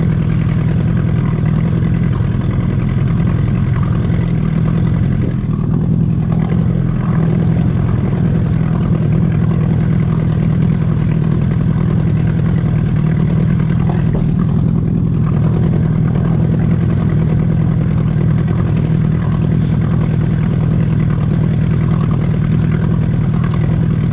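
Boat's outboard motor running steadily while trolling, a constant low hum with no change in speed.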